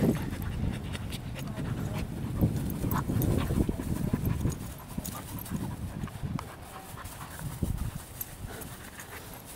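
A Vizsla puppy and a Border Collie play-wrestling, panting and scuffling against each other.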